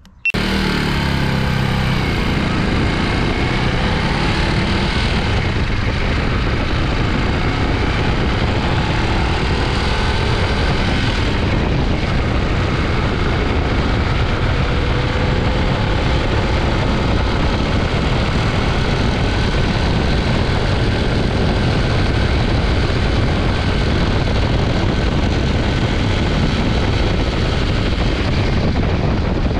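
Fantic Supermoto 125 motorcycle riding along at a steady speed, recorded from a camera on the front fork: engine noise under a heavy rush of wind on the microphone, the engine pitch drifting slowly up and down.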